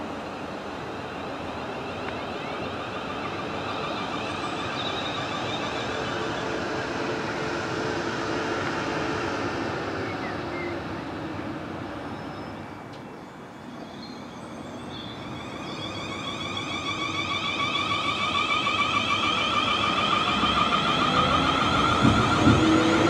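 South Western Railway Class 450 Desiro electric multiple units running through the station: first a steady rumble of wheels and motors on the far track, then, after a short lull, a unit approaching close by with its traction motors whining, the whine slowly rising in pitch and growing louder, with a few wheel clatters near the end.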